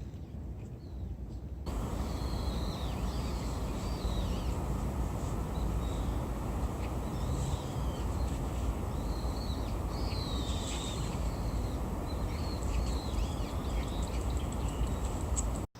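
Birds chirping and calling, many short high chirps scattered throughout, over a steady low rumble of background noise that grows louder about two seconds in.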